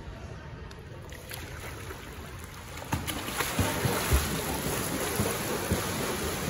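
Swimmer's flutter kick splashing at the surface of a pool: a continuous splashing that starts about three seconds in, with irregular thumps of the feet slapping the water.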